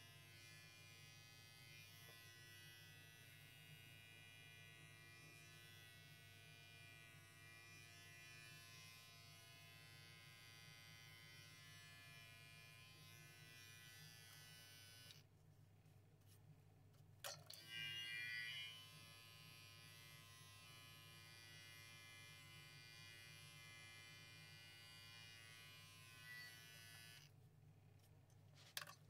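Electric hair clippers buzzing faintly and steadily while clipping a long-haired cat's coat. The buzz thins out briefly about fifteen seconds in and again near the end, and there is a short louder noise at about eighteen seconds.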